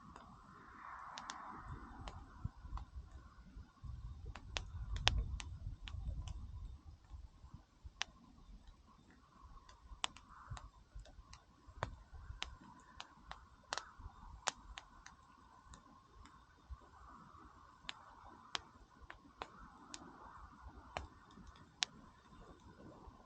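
Wood fire crackling, with irregular sharp snaps and pops from the burning wood.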